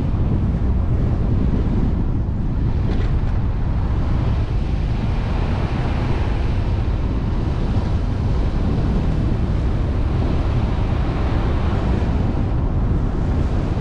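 Wind buffeting the microphone over a steady rumble of road noise from a moving vehicle.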